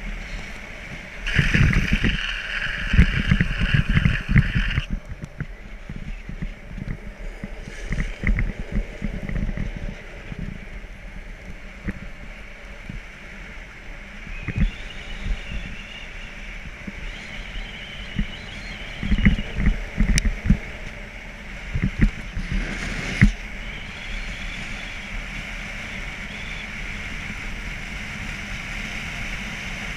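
A vehicle driving along a winding road: steady road and wind noise, broken by scattered knocks and rattles, with a louder stretch of hiss early on.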